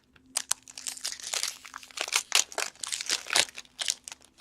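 Foil wrapper of a hockey card pack crinkling and rustling as it is handled and opened, a dense run of crackly rustles.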